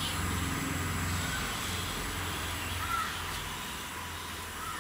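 Steady low rumble and hiss of background noise, with a few short bird calls.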